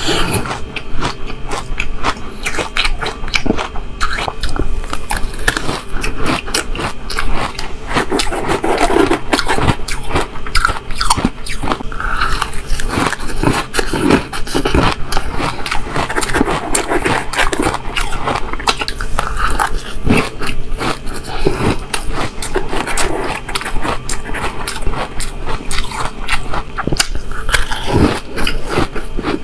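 Shaved ice with passion fruit being crunched and chewed mouthful after mouthful, picked up close by a lapel microphone: a dense, continuous run of crisp crackles.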